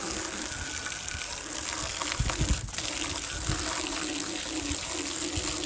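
Water running steadily out of a garden hose at ordinary household pressure, a low flow that is not much pressure. A brief knock about halfway through.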